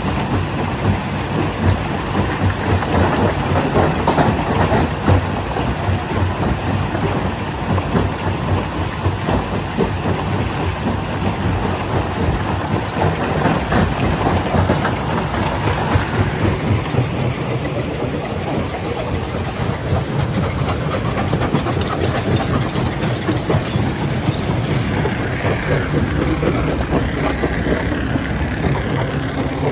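Rock-crushing jaw crusher running: a steady heavy machinery drone under a continuous irregular clatter and knocking of rock being broken and tumbling through the plant.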